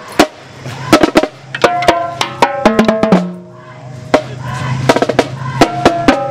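Marching band playing on the move: Yamaha marching snare drums striking sharp beats under short, punchy brass chords from sousaphone and horns, the same short phrase coming round about every four seconds.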